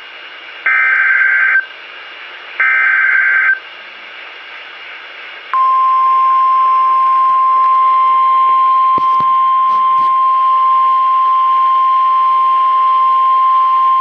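EAS/SAME alert over a NOAA Weather Radio receiver's speaker: two short buzzy digital header bursts about a second apart, then, from about five and a half seconds in, the steady 1050 Hz weather-radio warning alarm tone. Together they signal the start of a new warning broadcast.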